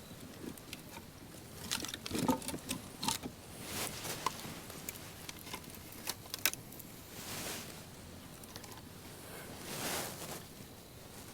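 Scattered sharp clicks, snaps and rustles of wet sticks and fire starters being handled and arranged as a campfire is lit, with two brief whooshes late on.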